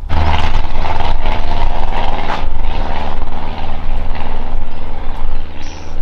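A motor vehicle's engine running steadily, starting abruptly.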